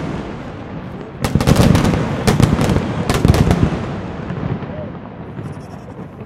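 Night fireworks display: bursts of sharp bangs in three close clusters between about one and three and a half seconds in, each followed by a rolling rumble, then the noise dies away.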